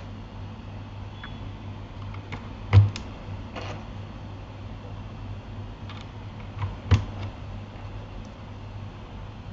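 Scattered clicks and light knocks from handling a Keychron K8 mechanical keyboard, irregular rather than a typing rhythm, with two louder knocks about three and seven seconds in. A steady low hum runs underneath.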